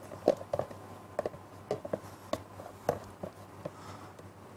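Egg yolks and whole eggs poured from a plastic tub into a stainless steel mixing bowl, landing as short, irregular plops about two or three a second.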